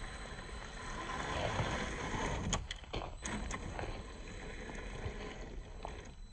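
Traxxas TRX4 RC crawler driving over rough trail ground: a steady, noisy rumble of tyres and drivetrain, with a few sharp clicks and knocks about halfway through as it works over rocks.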